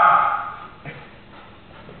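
Small dog's high yappy bark during play fighting, trailing off within the first half second, then a lull with one faint tap about a second in.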